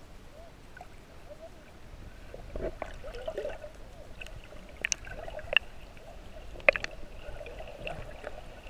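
Muffled water sloshing and gurgling heard from a camera held underwater, with a few sharp clicks about halfway through.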